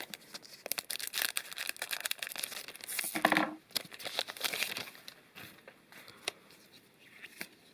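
Foil wrapper of a Magic: The Gathering Kaldheim set booster pack crinkling and tearing as it is opened. A dense run of quick crackles, loudest about three seconds in, thins out to scattered ticks after about five seconds.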